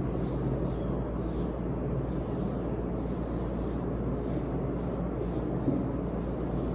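Steady background hum and hiss with faint soft rustles: room tone, no distinct event.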